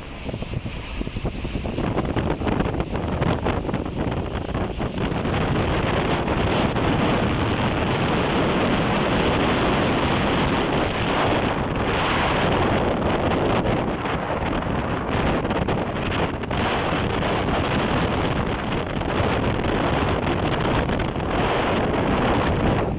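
Blizzard wind rushing over the microphone: a loud, steady roar with gusty buffeting. It swells about two seconds in and cuts off suddenly at the end.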